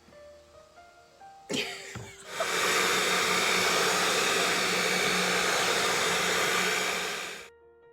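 Electric mixer switched on after a couple of knocks, its motor running at a steady whir for about five seconds before stopping suddenly near the end.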